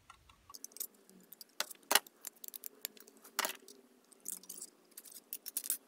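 An old pair of scissors cutting thin aluminum sheet: a quick, irregular run of sharp metallic snips and crinkles, the loudest about two seconds in.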